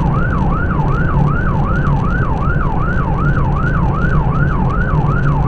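Police car siren wailing in its fast yelp pattern, rising and falling about three times a second, over the rumble of the car's engine and tyres during a high-speed pursuit.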